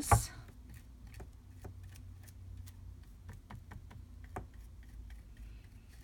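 Irregular light ticks and taps of a brush working Mod Podge along the edges of paper, with a sharper click right at the start, over a faint low hum.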